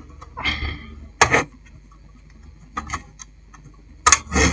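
A few separate clicks and knocks, the loudest about a second in and near the end, from the satellite receiver's sheet-metal case being handled and shifted on the workbench, over a low steady hum.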